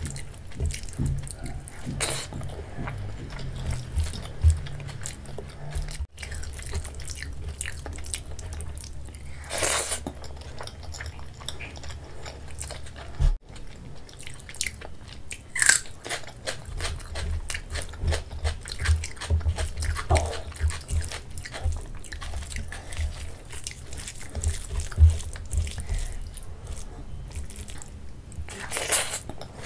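Close-miked eating by hand: wet squelching as rice is mixed with kadhi and pakoda, then mouthfuls being chewed with lip smacks. A few louder, sharper mouth or hand sounds stand out among the steady run of small clicks.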